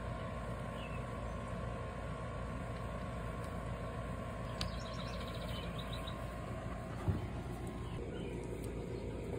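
Steady outdoor background hum, with faint bird chirps about halfway through and a single soft click about seven seconds in.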